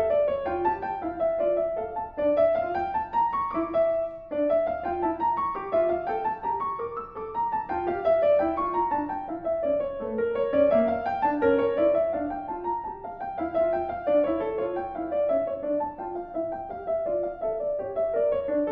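Background piano music, flowing runs of notes that climb and fall over and over, with a brief break about four seconds in.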